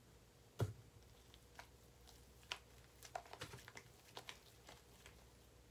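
Faint scattered light clicks and taps from hands handling things on a desk, with one louder knock about half a second in and a quick run of small clicks in the middle.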